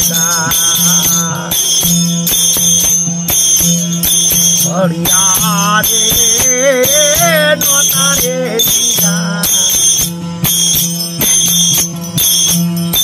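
Ramsagar, the large round-bodied folk string instrument of Gujarati bhajans, strummed in a steady rhythm with sharp, bright strokes. Over it a man's voice sings long wavering notes without words between the verses of a desi bhajan.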